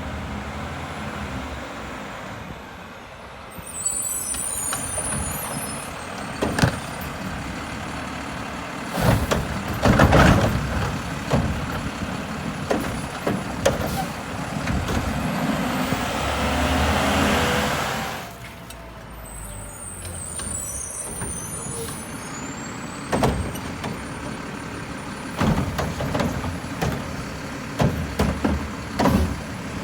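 Mack garbage truck with a Heil body running, with short air-brake hisses and a series of sharp clanks and knocks. The engine comes up louder for a few seconds around ten seconds in and again from about fourteen to eighteen seconds.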